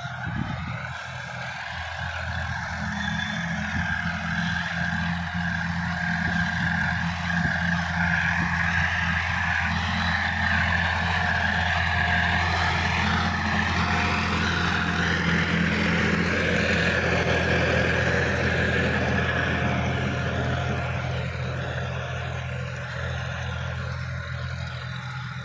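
Sonalika DI-50 RX tractor's diesel engine running steadily under load while tilling soil with a rear-mounted rotary tiller. It grows louder over the first few seconds as the tractor comes near, holds through the middle, and fades near the end as it moves away.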